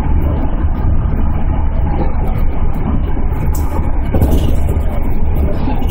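Steady low rumble of a 211-series electric train running at speed, heard from inside the driver's cab. A train passing on the next track adds a short hiss about four seconds in.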